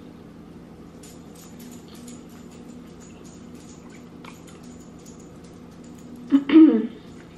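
A person chewing a bite of fried chicken sandwich: many small clicking mouth sounds over a faint steady hum. About six seconds in comes a brief, loud vocal sound.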